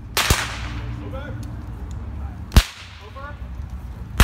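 Three sharp cracks from Civil War reenactors' percussion muskets, one at a time, a second or two apart, over low wind rumble on the microphone.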